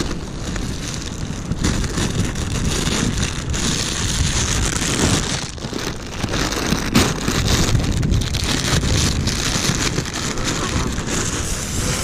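Wind buffeting the camera microphone, a steady low rumble with a dense crackling rustle over it.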